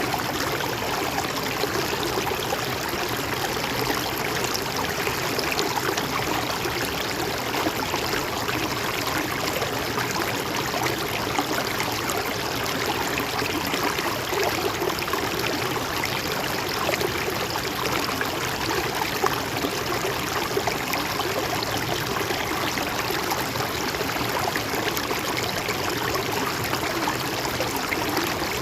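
River water flowing steadily over rocks, an even rushing and gurgling.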